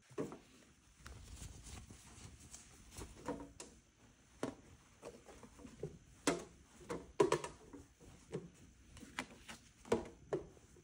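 Hands handling folded terry-cloth hand towels and their paper hang tags: irregular soft rustles and light taps, a dozen or so short sounds.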